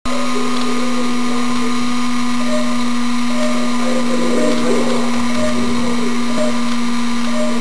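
A steady buzz held at one unchanging pitch, with faint wavering sounds behind it.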